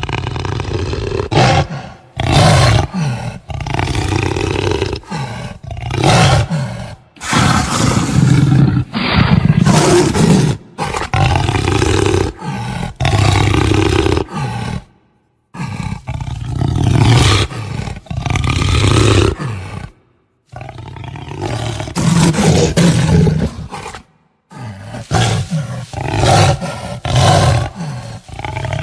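Jaguar growling and roaring, in a series of separate recordings spliced together with abrupt cuts between them.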